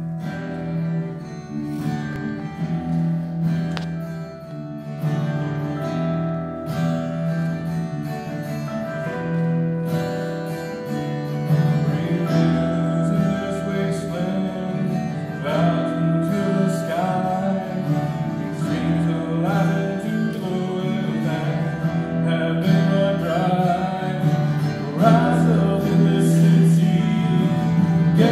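Two guitars, one of them acoustic, playing a slow worship song, joined by a man singing from about twelve seconds in.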